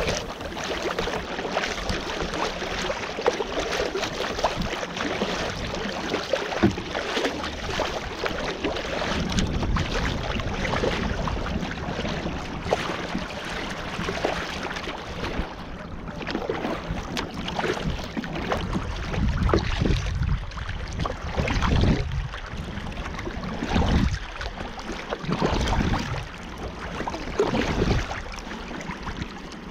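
Kayak paddling on open sea: paddle blades dipping and splashing and water washing along the hull, over wind on the microphone. Louder splashes come about every two seconds in the second half.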